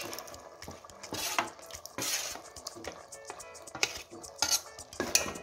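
Metal utensils scraping and clinking against an aluminium pot as thick ground spice paste is tipped in, with several separate knocks and scrapes.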